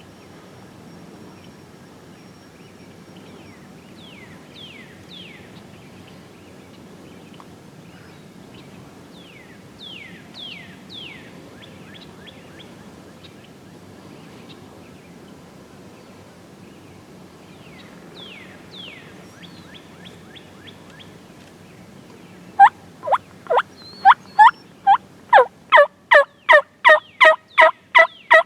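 Wild turkey yelping: a loud series of short yelps starts about three-quarters of the way through and quickens to about three a second. Faint bird chirps sound now and then before it.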